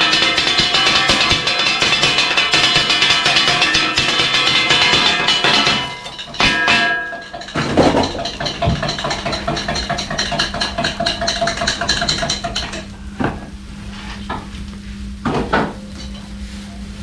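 Kotthu roti being chopped on a flat griddle with two metal blades: rapid, continuous metallic clanging with a ringing edge. After about six seconds it thins out to a few scattered clanks over a steady low hum.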